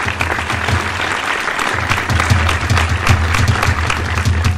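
Applause: a dense clatter of hand-clapping with crowd noise. A low hum runs beneath it and drops out briefly after about a second.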